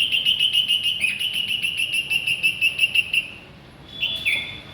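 Small nesting bird giving a rapid, even run of sharp alarm chirps, then a couple of short falling calls: an agitated parent scolding a hand brought near its nest of young.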